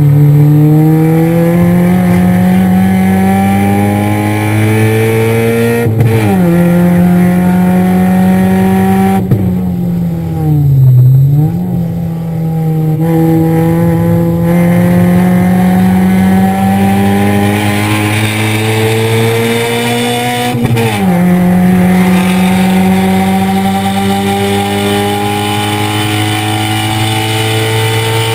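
Car engine heard from inside the cabin at full throttle on a track lap. Its pitch climbs, drops sharply with an upshift about six seconds in, sags and picks back up around ten to twelve seconds, then climbs again with another upshift about twenty-one seconds in as the car speeds up.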